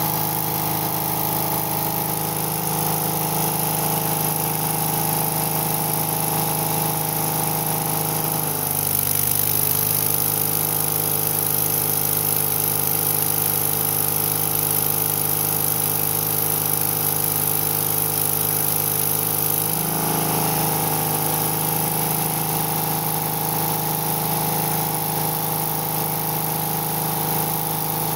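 Engine of a Miller engine-driven welder running steadily. About nine seconds in a welding arc is struck: for about eleven seconds the engine's pitch sags slightly under the load and a sizzling arc hiss rides over it, then the arc breaks and the engine picks back up.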